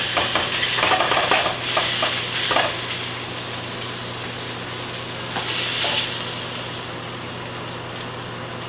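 Hot oil sizzling and crackling in a frying pan, louder with bursts of crackle in the first few seconds and again about six seconds in, over a steady low hum.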